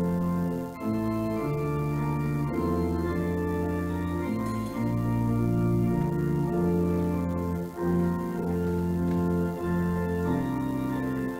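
Organ music playing slow, sustained chords that change about every second or two, with short breaks between some of them.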